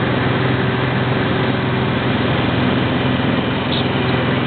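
Cessna Turbo 206's turbocharged six-cylinder piston engine and propeller droning steadily, heard inside the cabin during the climb after takeoff, with a constant low hum under a rushing noise.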